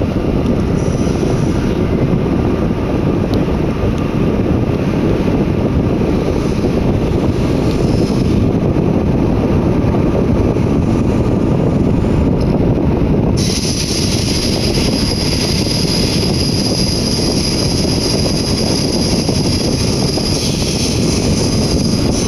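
Z 20900 double-deck electric train running at speed, heard from inside the carriage: a steady loud rumble of wheels and running gear. About halfway through, a steady high-pitched hiss comes in on top of it.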